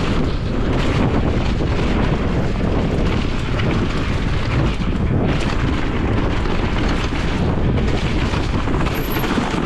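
Wind buffeting the camera microphone and tyres rumbling over a rough dirt trail as a mountain bike is ridden, with constant knocks and rattles from the bike.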